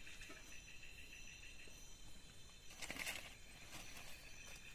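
Night-time forest insect chorus: several steady, high-pitched chirring tones at once. About three seconds in comes a short burst of crackling and rustling from the small twig campfire as sticks are fed onto it.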